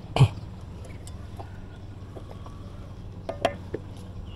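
A sharp knock just after the start, a few light clicks about three seconds in and another knock at the end, from fishing gear being handled in a small wooden boat, over a steady low hum.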